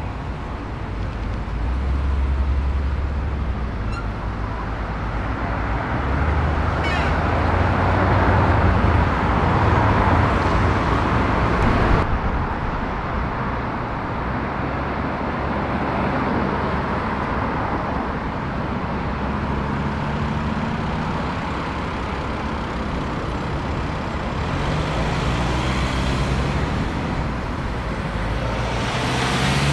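Busy city road traffic: steady road noise from passing cars and a coach. In the second half, engine notes rise in pitch as vehicles pull away.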